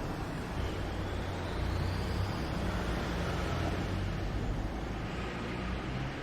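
Steady low rumble under a hiss, like distant traffic or machinery, with a faint rising whine during the first two seconds.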